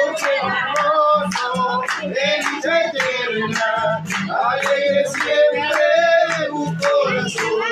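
Live folk music: voices singing over a large drum beaten with sticks in a steady rhythm.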